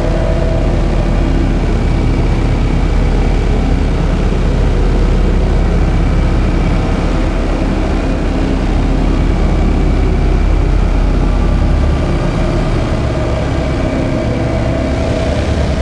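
Experimental drone and noise music played live: a loud, sustained, dense drone with a deep bass rumble and held tones above it. The bass shifts and thins out about twelve seconds in.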